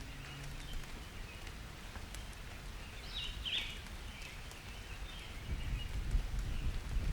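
Summer thunderstorm ambience: light rain with scattered drop ticks over a low rumble of distant thunder that swells near the end. A short bird call sounds about three seconds in.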